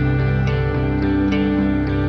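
Background instrumental music with plucked guitar notes over sustained tones.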